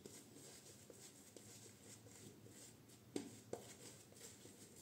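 Faint, soft swishing of a shaving brush working soap lather over a beard, with two small clicks about three seconds in.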